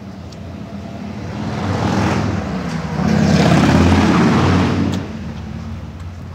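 A motor vehicle drives past close by on the street, its engine and tyre noise building up, loudest for a couple of seconds, then dropping away suddenly about five seconds in.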